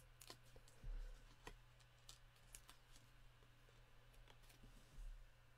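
Faint clicks and ticks of fingernails picking the backing papers off foam adhesive dimensionals stuck to a die-cut paper layer, with a soft low bump about a second in and another near the end.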